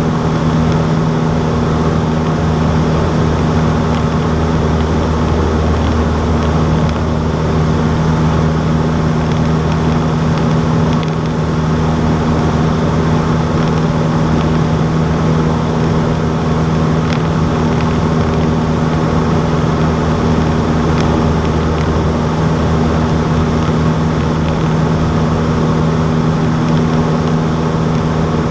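Cessna 152's four-cylinder Lycoming engine and propeller running steadily, a loud unbroken drone.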